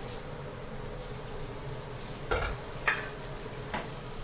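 Steady frying sizzle and hiss from woks on a lit gas hob, with two light knocks about two and three seconds in.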